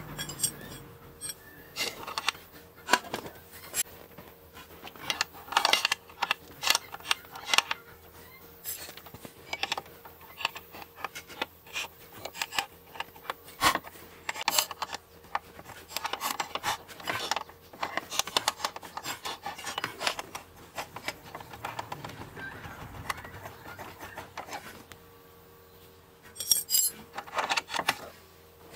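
Hand tools and metal suspension parts clinking and scraping while the upper control arms are worked loose from an Audi A8's front suspension. It comes as irregular clusters of sharp metallic clicks with short rubbing scrapes between them.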